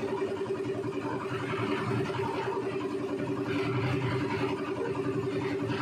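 Concrete mixer driven by a Dongfeng R175 single-cylinder diesel engine, running steadily at a constant pitch.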